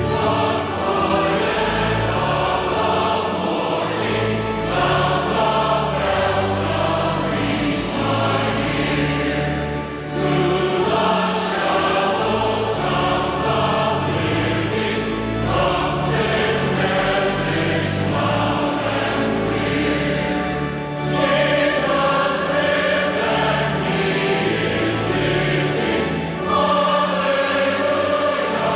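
A choir singing, with a deep, steady bass line sustained under the voices.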